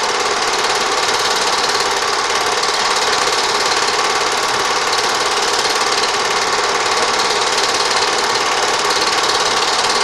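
Home-movie film projector running: a steady, rapid mechanical clatter from its film-advance mechanism and motor.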